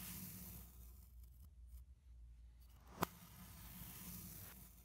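Packed kinetic sand being sliced with a hollow-edge santoku knife: two faint, grainy hisses as the blade is drawn down through the sand block, the second starting with a sharp tap about three seconds in.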